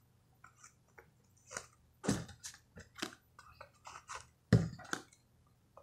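Handling noise from a wallet being gone through and cards being pulled out: scattered soft rustles and clicks, with two louder sharp knocks, one about two seconds in and one about halfway through.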